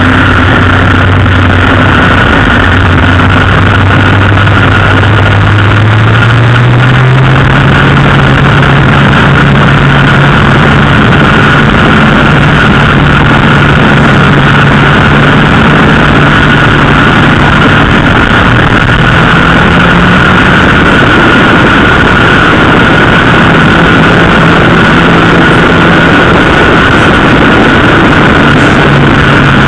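Honda CB Seven Fifty's air-cooled inline-four engine running under way on the road, its pitch rising about six seconds in as it pulls harder and then holding fairly steady. Heavy wind rush on the microphone and a steady thin high whine sit over it.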